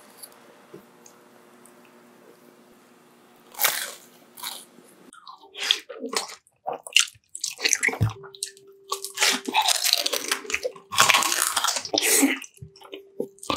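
A faint steady hum at first, then from about three and a half seconds in, close-up bites and chewing of crispy fast food: irregular crunches with wet, squishy chewing between them.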